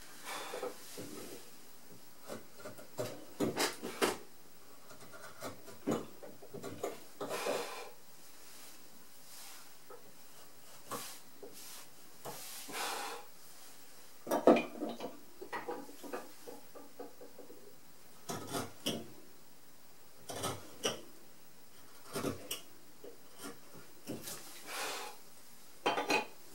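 Hand-pushed carving chisel paring very hard keyaki (zelkova) wood in short, irregular scraping strokes with pauses between, during the finishing cuts of a carved scroll.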